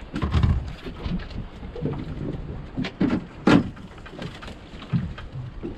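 Scattered knocks and clicks of bait and gear being handled on a fishing boat's deck as a cut bait fish is put on a hook, with one sharp knock about three and a half seconds in.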